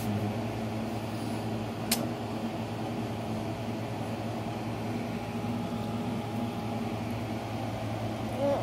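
Steady low machine hum, like a running appliance, with a single sharp click about two seconds in.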